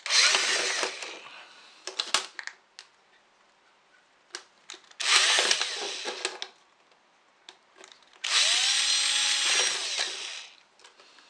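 Cordless drill with a 5 mm wood bit boring holes through thin plastic bottle bottoms, in three runs: two of about a second and a half, then a longer one of about two and a half seconds with a steady whine. A few light clicks of plastic sound between the first two runs.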